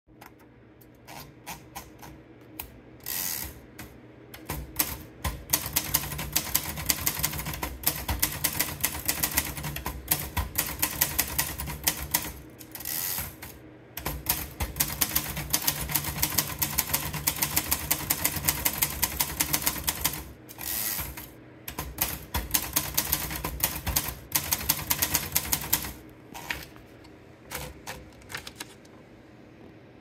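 Olivetti Studio 42 manual portable typewriter being typed on: three runs of fast, rapid key clacks, one run for each typed line. Twice there is a short break with a carriage-return sweep between lines. Scattered clicks at the start and near the end come from the paper being fed in and rolled up.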